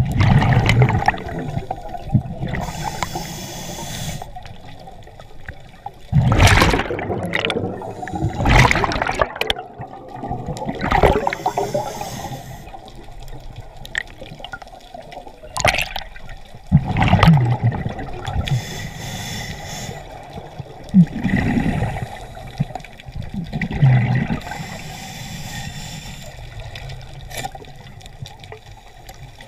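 Scuba regulator breathing underwater: a faint hiss on each inhale and loud bursts of rushing exhaust bubbles on each exhale, repeating every several seconds.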